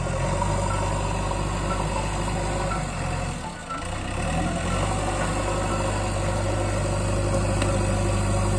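Diesel engines of a Swaraj 744 FE tractor and a JCB backhoe loader running steadily at low revs, with a brief drop in engine note about three and a half seconds in.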